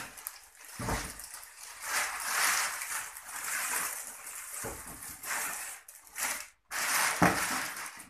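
Crinkling and rustling of the clear plastic bag being pulled off a new flat-screen TV, in loud irregular bursts, with a few dull thumps as the set is handled on its cardboard box.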